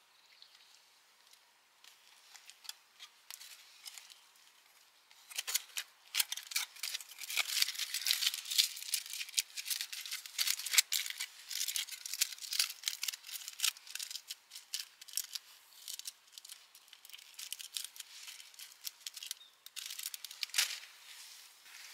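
Quick, dense crinkling and clicking of objects being handled. It starts about five seconds in, is busiest in the middle and thins out near the end.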